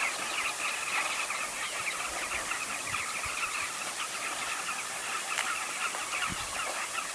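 A steady, dense chorus of rapid high chirps from many small animals, with a couple of low bumps near the end.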